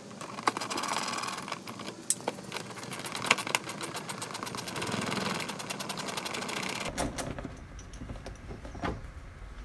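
Sped-up sound of hand tools working bumper screws: a fast, dense run of clicks and rattles that gives way about seven seconds in to a few separate knocks over a low rumble.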